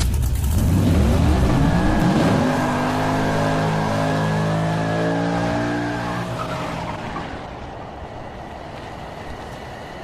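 Motorcycle engine revving hard, its pitch swinging up and down, then falling away and fading.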